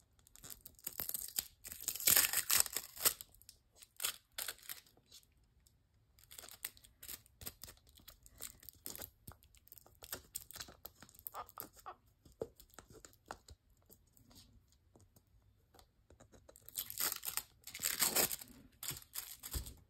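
Holographic transfer foil sheets crinkling and crackling as they are pressed onto a plastic ornament and peeled off. Louder bursts of crackling come a second or two in and again near the end, with faint scattered crackles between.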